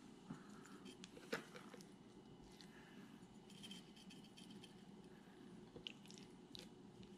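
Near silence with faint soft handling: raw fish fillets being turned over by hand on a plate and spice shaken onto them, with a few light clicks, the sharpest about a second in.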